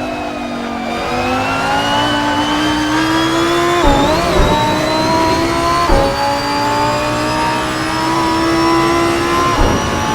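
Lamborghini Huracán Performante's naturally aspirated V10 under hard acceleration, heard from inside the car. The engine note climbs steadily and is broken by quick gear changes with a short thump about four seconds in, about six seconds in, and near the end.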